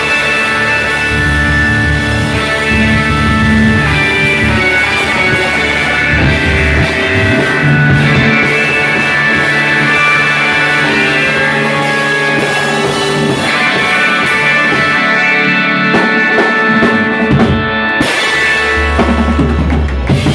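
Live psychedelic rock band playing: electric guitar, bass, keyboard and drum kit, with long held droning chords over the drums. Near the end the cymbals drop away and a low note is held as the song winds down.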